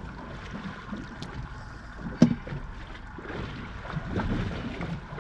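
Wind and water noise around a fishing boat, with a sharp knock on the boat about two seconds in.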